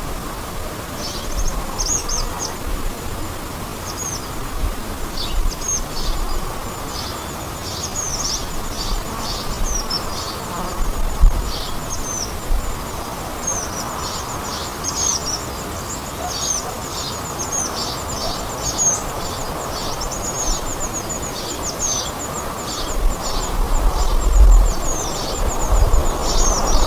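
Small birds chirping, many short high calls in quick succession, over a steady background hiss. Low wind rumble on the microphone comes in near the end.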